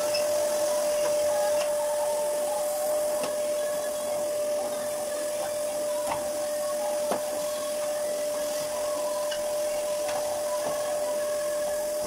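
Canister vacuum cleaner running steadily, its motor giving a constant whine over the rush of suction. A single knock sounds about seven seconds in.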